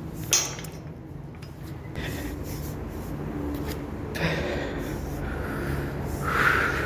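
A climber breathing hard and scuffing against the structure, with a sharp knock about a third of a second in.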